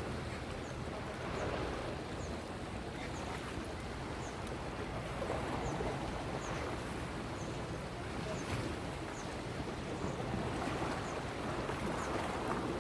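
Waves washing in, a steady rushing that swells and eases slowly, with a faint high chirp repeating about once a second.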